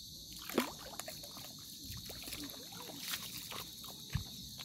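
Footsteps squelching and splashing through wet tidal mud, with scattered clicks and a soft thump. A steady, high-pitched insect chirring goes on behind them.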